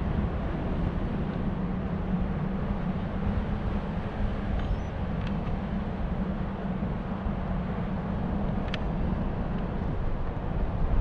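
Steady wind rush on the microphone from the airflow of a paraglider in flight, low and even with no let-up.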